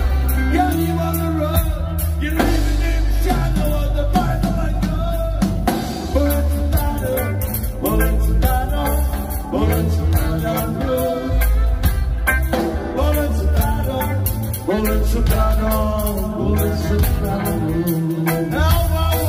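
Live reggae band playing a song, with a man singing over electric guitar, bass guitar and drum kit, the bass heavy and steady.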